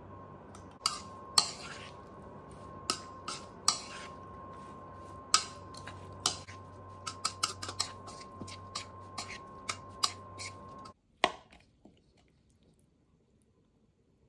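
Metal spoon clinking and scraping against a salad bowl as the salad is tossed: a run of irregular sharp clinks over a steady hum with a thin high whine from an oven running. About 11 seconds in, the hum cuts off abruptly, followed by one last clink.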